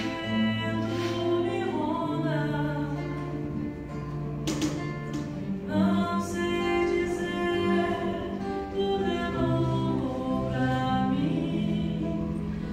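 Slow song sung live with long held notes, accompanied by acoustic guitar.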